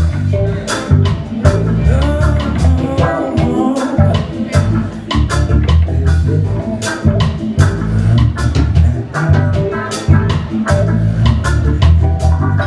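Live reggae band playing: a heavy bass line, drum kit, electric guitars and keyboard, with a man's voice over the music.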